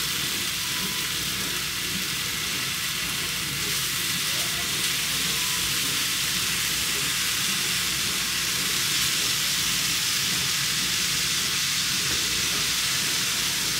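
Bacon frying on a griddle, a steady sizzle.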